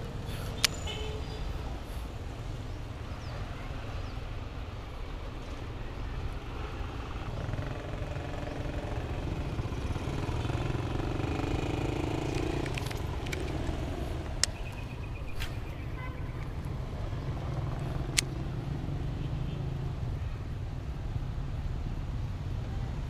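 Steady low outdoor rumble with three sharp clicks, the first about half a second in and two more in the second half.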